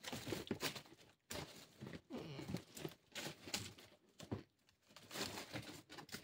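A person squeezing through a narrow rock hole: clothing and body scraping and rustling against rock and loose earth in irregular bursts, with short straining breaths.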